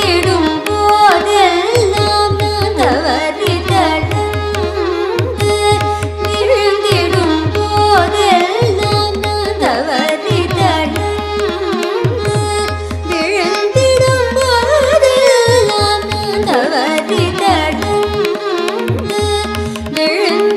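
Carnatic vocal music: a young woman sings a devotional composition in raga Begada, set to Adi tala. She is accompanied by violin, by mridangam strokes and by a steady tanpura drone.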